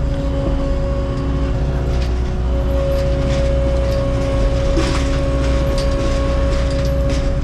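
Skid-steer loader's engine running steadily under a constant hum, with a few short knocks and rattles from the machine.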